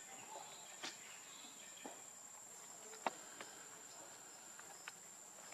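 Steady high-pitched insect drone, with a few faint sharp clicks scattered through.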